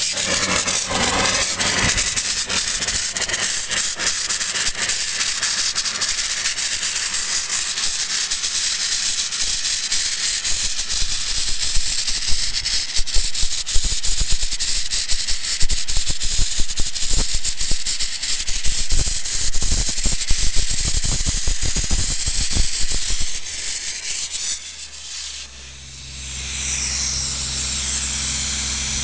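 Vapor-blasting gun hissing as its jet of water and abrasive strikes a motorcycle engine's casing, with uneven spattering crackles through the middle. The spray drops away about twenty-four seconds in, then a steady low hum sets in under the renewed hiss.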